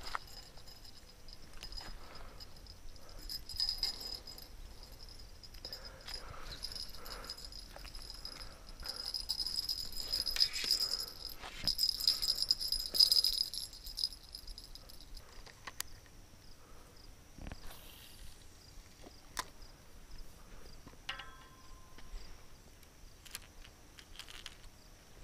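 A steady high insect trill, louder through the first half, over scattered clicks and rattles of fishing tackle being handled.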